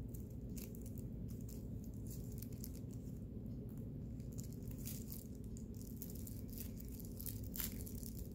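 Plastic-bag yarn (plarn) crinkling faintly as it is worked in the fingers with a crochet hook: scattered soft rustles and ticks over a steady low hum.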